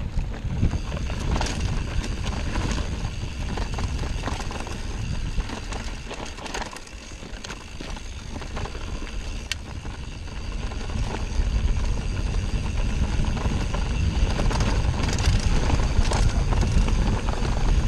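Mountain bike ridden fast down a dirt forest singletrack: tyre rumble and wind noise on the microphone, with irregular rattling knocks from the bike over bumps. Louder over the last few seconds as the speed picks up.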